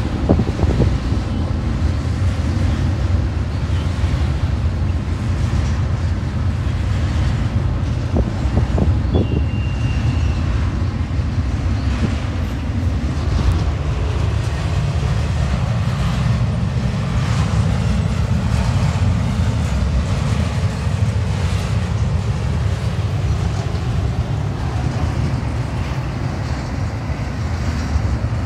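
CSX double-stack intermodal freight train rolling past, a steady low rumble of cars on the rails with a few faint clicks, and a brief high squeal about ten seconds in.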